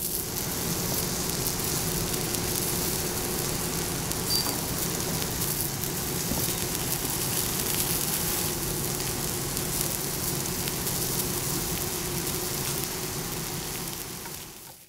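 Beef cubes sizzling steadily on a hot cast-iron griddle, with a low steady hum underneath; the sound fades out near the end.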